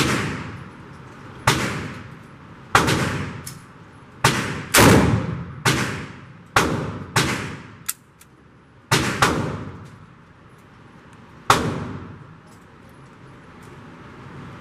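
Smith & Wesson M&P R8 .357 Magnum revolver firing a string of about ten shots at uneven intervals over roughly eleven seconds. Each shot rings on in the echo of an indoor range.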